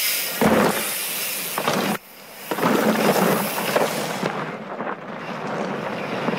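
Mountain bike riding hard down a dirt and rock forest trail: tyres crunching and scrabbling over gravel, with a heavy landing thud about half a second in after a jump. The sound briefly cuts out around two seconds in, then the rough trail noise picks up again.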